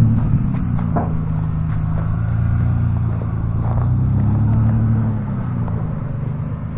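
The old Ranger's engine running while the vehicle drives, its pitch rising a little about four seconds in and then easing off, with a few light knocks and rattles.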